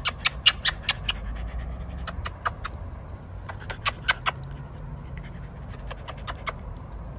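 A Staffordshire Bull Terrier's wet mouth sounds close to the microphone: quick smacking clicks of licking, in four short runs of four to six clicks each.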